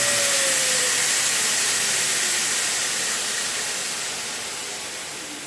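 2x72 belt grinder spinning down after being switched off: the rush of the belt fades steadily while a motor whine slides down in pitch.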